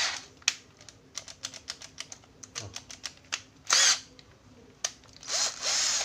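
Ratcheting clicks from a National EZT113 cordless drill's chuck and clutch ring being turned by hand, a few clicks a second, with a quick rattling burst a little before four seconds. Near the end the drill's motor briefly whirs up.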